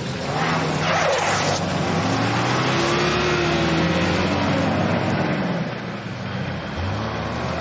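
A vehicle engine revving, its pitch rising and falling, over a steady rushing noise.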